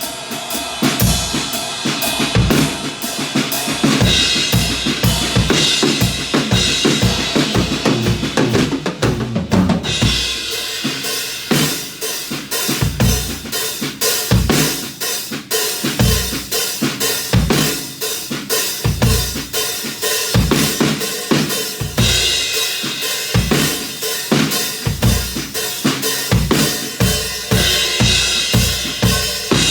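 Acoustic drum kit played in a continuous groove, bass drum and snare under steady cymbal time-keeping, recorded on a mobile phone. The pattern changes about a third of the way through.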